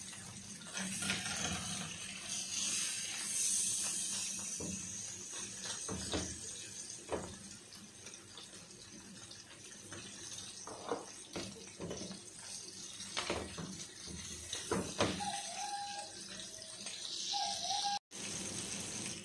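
Sea bream frying in hot oil in an enamel pan, a steady sizzle, with scattered clicks of metal tongs against the pan and fish.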